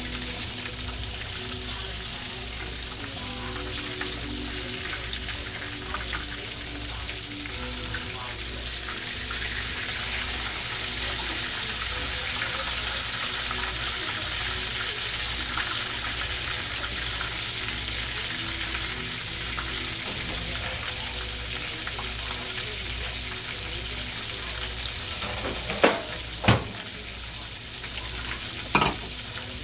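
Battered chicken breasts frying in oil in a cast iron skillet: a steady sizzle. A few sharp knocks come near the end.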